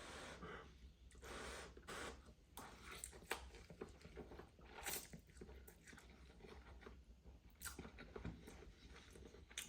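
Faint, close chewing of a mouthful of spicy instant noodles, with scattered short clicks and smacks.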